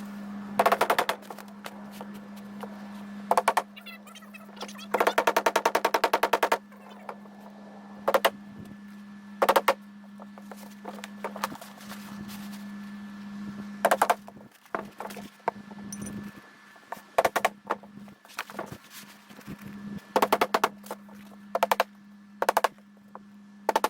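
Simplex cap nails being driven through a roofing base sheet: irregular sharp strikes, single and in quick runs, with a dense rapid run of strikes about five seconds in and several clusters near the end. A steady low hum sits underneath throughout.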